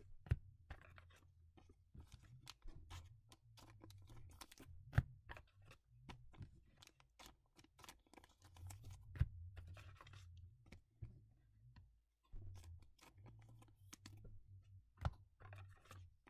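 2021 Panini Mosaic soccer trading cards being handled and shuffled through by hand: soft rustling and scattered light clicks and taps, with two sharper clicks about five and nine seconds in.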